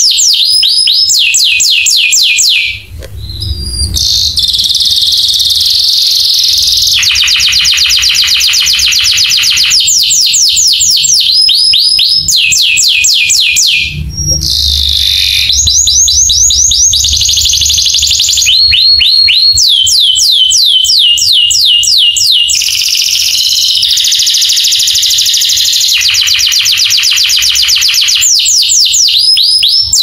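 Domestic canary singing a long, continuous song of rapid trills. Each phrase is a fast run of repeated falling notes, and a new phrase begins every second or two, with short breaks about three seconds in and again near the middle.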